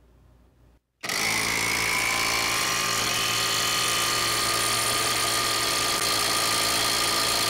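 JSD Hope cordless impact wrench running steadily under load as it drives a hydraulic test press. It starts abruptly about a second in.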